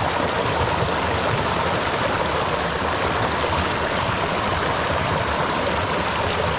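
Muddy river water rushing and splashing over rocks in shallow rapids, a steady, even rush.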